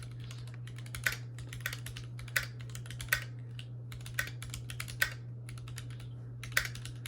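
Typing on a Keychron Q2 mechanical keyboard with Boba U4T tactile switches and GMK Hanami Dango keycaps: a fast, steady run of keystroke clacks, with a louder stroke about once a second, over a low steady hum.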